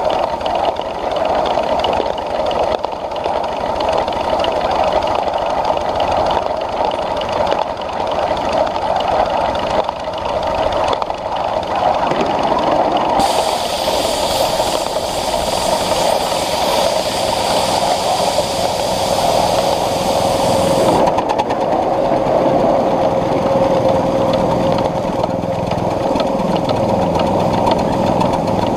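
Ridable live-steam Pacific locomotive running with its passenger cars, making a steady running noise of wheels on rails. A high hiss joins for several seconds in the middle.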